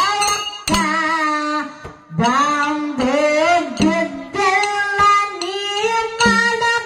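A girl sings a Kannada folk song (dollina pada) through a microphone and PA, in sung phrases with short breaths between them and a long held note in the second half.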